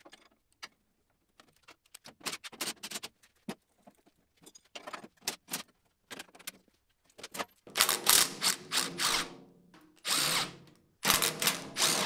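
Scattered small metallic clicks and clatter of tools and parts being handled, then a cordless impact driver with a socket runs in three short bursts from about eight seconds in, turning screws on the welder's sheet-steel case.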